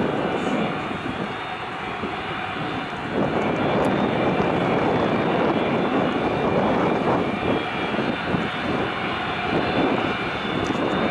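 Antonov An-124's four D-18T turbofan engines running at taxi power, a steady jet rumble with a thin high whine, growing louder about three seconds in.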